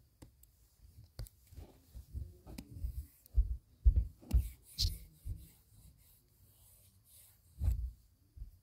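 Irregular dull taps and rubbing of a stylus or finger drawing on a tablet's touchscreen, picked up through the device.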